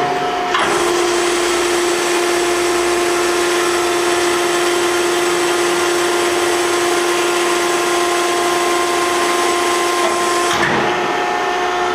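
Hydraulic power unit of a Maren Model 72 closed-end baler, its 15 hp electric motor and pump running under load with a steady whine while the door cylinder opens the baler door. Near the end the tone shifts.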